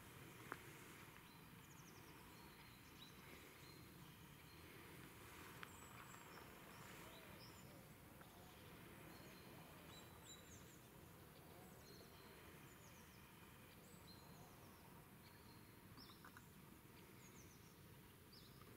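Near silence: quiet outdoor ambience with faint birds chirping, short high calls repeated every second or so.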